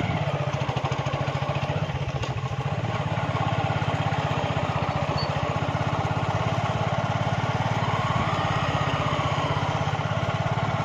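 Motorcycle engine running steadily at low road speed.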